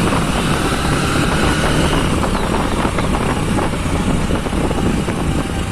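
Honda SP 125 motorcycle under way on a road, its single-cylinder engine running steadily, with wind rushing over the microphone.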